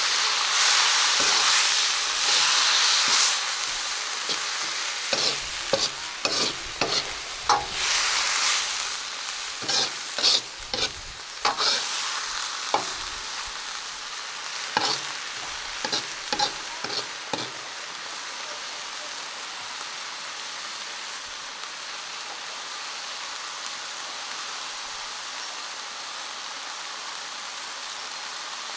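Vegetables and meat sizzling in a wok over a fire, stir-fried with a metal wok ladle. The sizzle is loudest in the first few seconds. Through the first half the ladle scrapes and clicks sharply against the wok many times, then it gives way to a steady, quieter sizzle.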